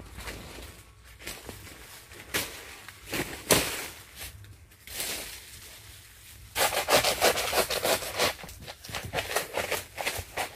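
Irregular rubbing and scraping, with a dense run of quick short scrapes in the second half.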